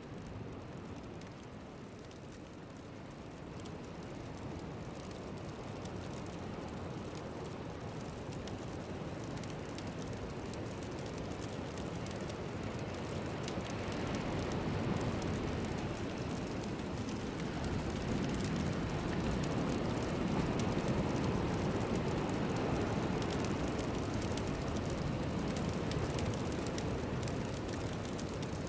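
A steady rushing noise soundscape, rain-like, with no melody or beat, fading in and swelling gradually louder through the first half.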